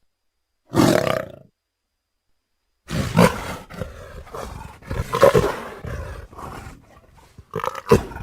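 Big-cat roar sound effects: one short roar about a second in, then after a pause a long run of roars, and another short roar near the end.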